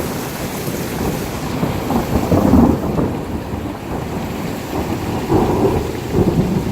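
Thunder rolling in long low rumbles that swell and fade, over steady heavy rain and hail.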